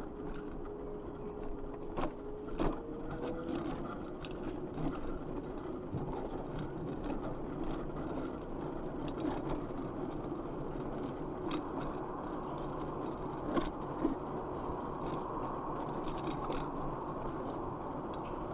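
Electric scooter running along a street: a steady hum and rumble from its motor and wheels, with scattered small knocks and clicks from the ride, over road traffic.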